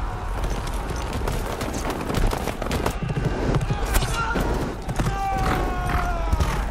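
Cavalry horses galloping at full charge: a dense clatter of hoofbeats under men shouting. Near the end a long cry falls in pitch.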